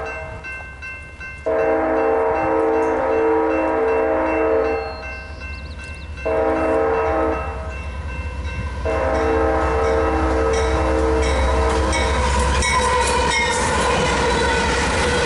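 Union Pacific freight locomotive's multi-chime air horn sounding the grade-crossing warning. After the tail of one blast there is a long blast, a short one and a final long blast. The locomotives then pass close by with a low diesel rumble and steel wheels rattling over the rails.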